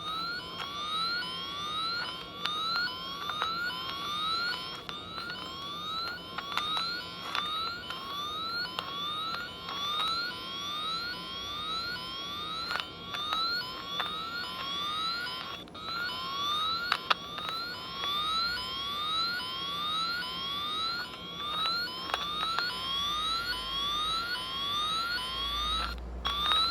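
Wire tracer's tone receiver giving a repeating rising electronic chirp, roughly every half second, while it is swept over a truck wiring harness to find a wire, with a few sharp handling clicks.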